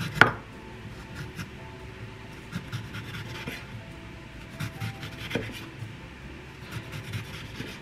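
Chef's knife cutting a lemon on a wooden cutting board. A sharp knock as the blade meets the board just after the start is followed by quiet scraping and rasping as the knife carves the rind off the lemon, with another knock about five seconds in.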